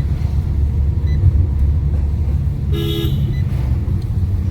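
Fiat Linea's horn giving one short toot about three seconds in, over the steady low rumble of the car's engine and road noise inside the cabin.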